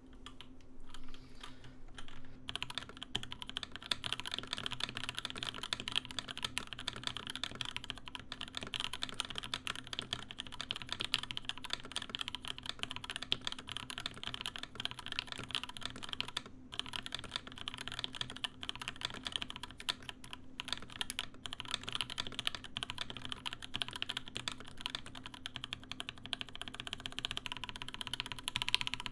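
Fast, continuous typing on a top-mount mechanical keyboard with an aluminium plate, lubed and filmed JWK Tourmaline v2.5 switches and GMK keycaps. It starts about two seconds in and breaks off briefly about halfway through.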